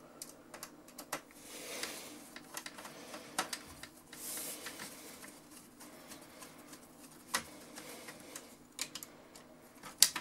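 Small screwdriver driving screws into a cassette deck's tape mechanism: scattered light clicks and short scrapes of the screw and driver, with a sharper click near the end.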